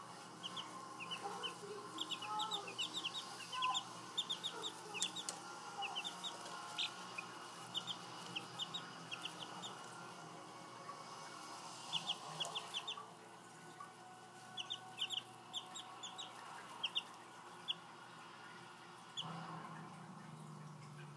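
A brood of week-old chicks peeping: many short, high peeps in quick runs, with a few pauses between the runs.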